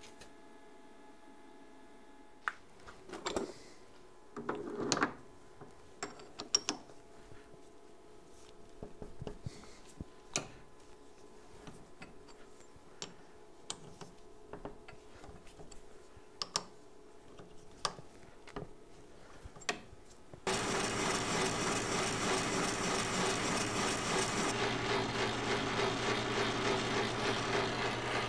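Scattered clicks and knocks of metal parts being handled. About twenty seconds in, a Logan metal lathe starts and runs steadily, turning stock held in a three-jaw chuck; the sound loses some of its high end a few seconds later.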